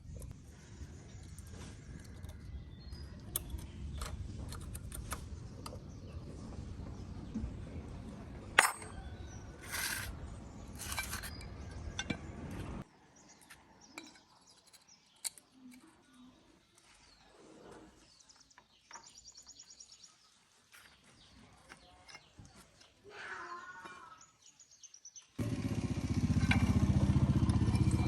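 An engine running steadily with a low rumble, with scattered metallic clinks over it. Partway through it gives way to a much quieter stretch with a few faint bird chirps, and near the end a loud engine rumble starts abruptly.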